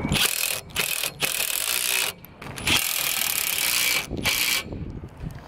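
Ratchet wrench on a socket extension clicking in several quick runs with short pauses, tightening the capped clamp bolts that pinch the solar panels down.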